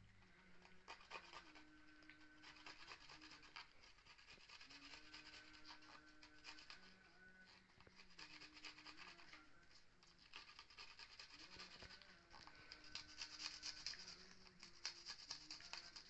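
Faint, repeated rubbing and scraping by hand during food preparation, in irregular strokes that grow denser and a little louder toward the end.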